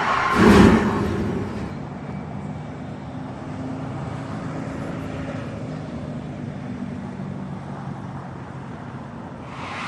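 A car-crash sound effect: a loud sudden crash about half a second in that dies away over a second, followed by a steady vehicle engine hum.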